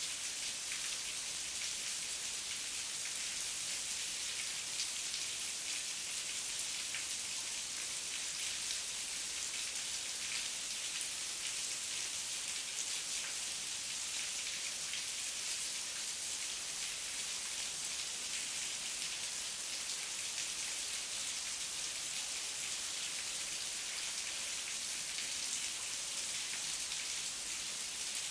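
Heavy rain falling steadily, a dense even hiss of drops with many small patters and no thunder.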